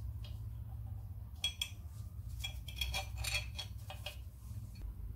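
Small steel parts clicking and clinking as the hold-down pins and springs are fitted to the handbrake shoes and back plate of a Land Rover Defender's drum parking brake. There are a few taps about a second and a half in, then a busier run of clinks around three seconds, over a steady low hum.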